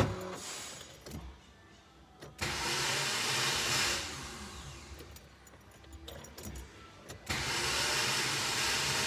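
A 2014 Chevrolet Celta's starter motor is engaged twice, about two and a half seconds in and again near the end, after a click at the start. Each time it spins with a loud whirring that dies away with a falling whine, and the engine never cranks: the Bendix drive is slipping instead of engaging the flywheel, and the starter's end bearing turns out to be broken too.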